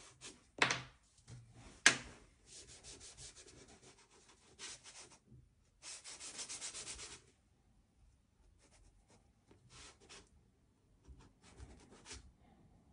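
Soft pastel stick scratching and rubbing across colored paper in short strokes, with a fast, dense run of strokes around the middle and fainter strokes near the end. Two sharp taps, about half a second and two seconds in, are the loudest sounds.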